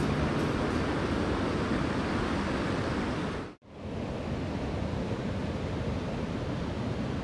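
Rushing water of a mountain trout creek, a steady even roar of current over rocks. It cuts out for an instant about halfway through, then carries on.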